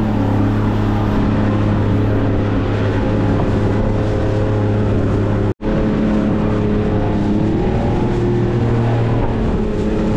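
Fishing boat's engine running steadily under way, a low even hum with a hiss over it. The sound drops out for an instant a little past halfway.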